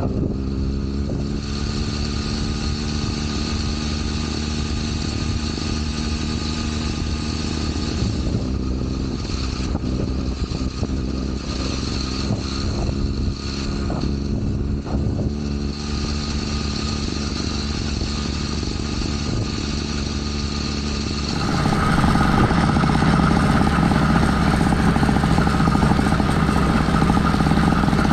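Motorized bicycle's two-stroke engine, a YD-100-type top end on a Phantom 85 bottom end, running steadily. About three-quarters of the way through the sound turns suddenly louder and fuller.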